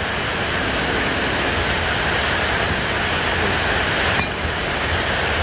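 Steady background noise with a low hum, and a light click about four seconds in.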